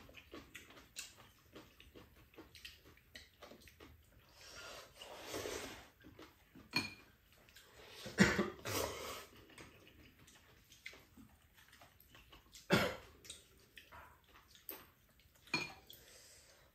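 Ramen noodles being slurped and chopsticks clicking on bowls, in scattered short bursts. A cough about eight seconds in is the loudest sound.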